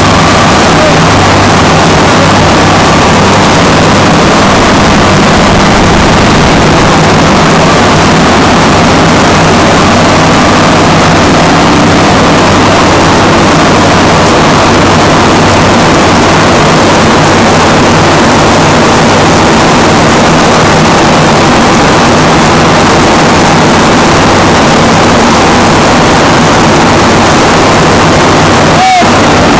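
Standby diesel generator set running steadily during a power outage, a loud, even engine noise with a low hum. A single short squeak sounds near the end.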